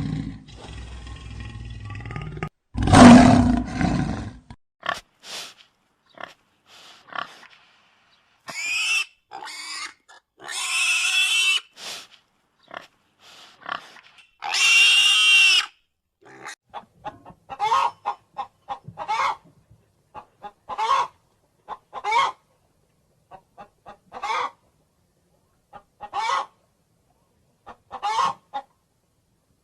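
A run of different recorded animal calls, one kind after another: a rough roar at the start, a loud call at about 3 s, several longer calls in the middle, then short calls repeating about every second and a half.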